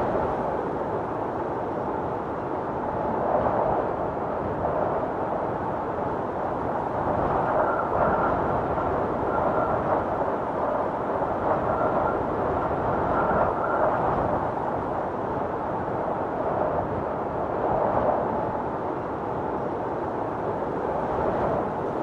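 Howling blizzard wind blowing in gusts that swell and ease every few seconds, with a thin whistle coming and going in the middle.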